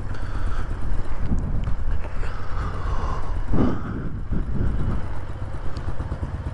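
Motorcycle engine running as the bike is ridden slowly at walking pace, a steady low rumble.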